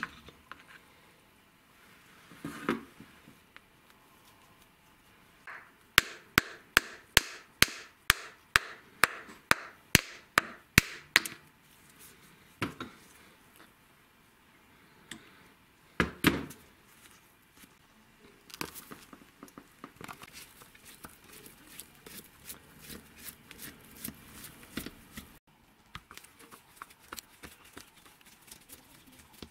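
Parts being knocked apart by hand: a run of about a dozen sharp hammer taps, roughly two a second, then a few single knocks and a patter of light clinks from small metal parts and tools.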